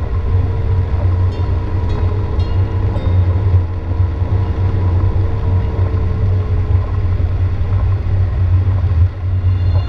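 Steady low rumble of a car driving on a wet, rain-soaked mountain highway, heard from inside the cabin, with a faint hum that slowly falls in pitch. A few faint ticks come in the first few seconds.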